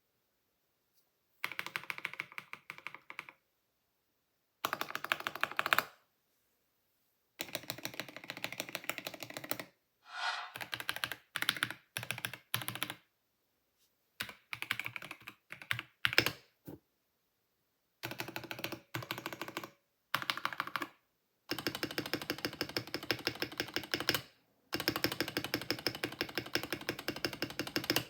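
Typing sound test on a KBD67 Lite R3 custom mechanical keyboard fitted with NovelKey Silk switches: about eight runs of rapid keystrokes, each a few seconds long, with short silences between them.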